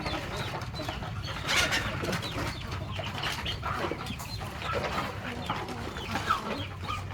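Chickens clucking and other birds calling in short, scattered calls, over a steady low hum.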